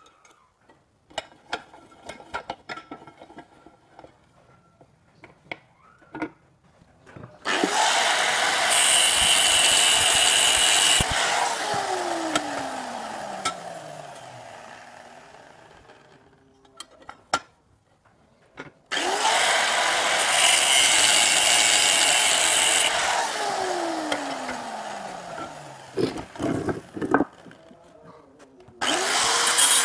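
Electric angle grinder grinding iron bar, run in three bursts: each time it spins up, grinds for a few seconds, then is switched off and winds down with a long falling whine. Light metal clinks and taps of handling come before the first run, and the third run starts near the end.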